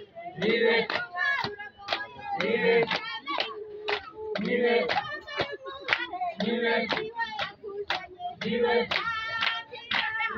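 Kirundi chanting: a short sung phrase repeated about every two seconds, with hand clapping between and over it.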